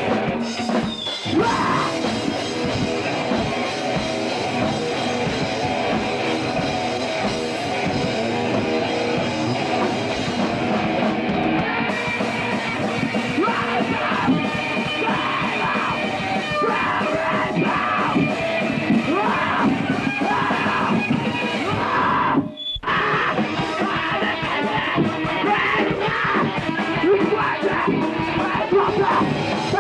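Punk rock band playing loud, with yelled vocals over guitar. The sound breaks off sharply for a moment about 22 seconds in, then carries on.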